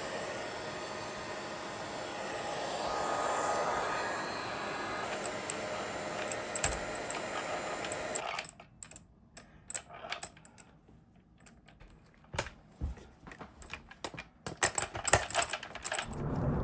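Heat gun blowing steadily to shrink tubing, then cutting off suddenly about eight seconds in. After that, a run of light, irregular clicks and taps from parts being handled.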